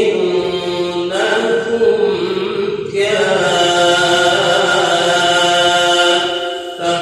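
A solo male voice reciting the Quran in drawn-out melodic tajweed, holding long ornamented notes. There is a short break about three seconds in, and the phrase fades away near the end.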